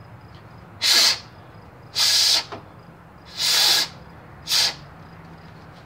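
Four short hisses of air, each under a second, as debris is cleared off the contact points of the blower motor's ground harness connector.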